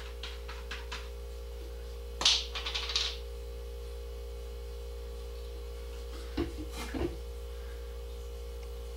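Handling noises from wiping slate coasters with a cloth dampened with alcohol from a squeeze bottle: a brief hissing rustle about two seconds in and two light knocks around six and seven seconds in. A steady electrical hum runs underneath.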